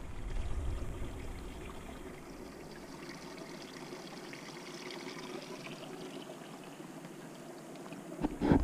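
A small mountain creek trickling over the rocks of its shallow stony bed, a steady gentle water sound. Loud knocks come in near the end.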